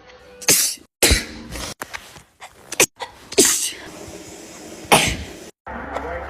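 Women sneezing one after another: about five loud, wet sneezes in quick succession, each a sudden sharp burst with a short tail, with abrupt breaks between them.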